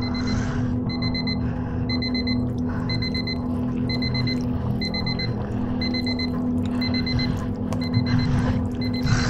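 Small electronic alarm beeping: a quick train of high beeps repeating about once a second, over a steady low drone.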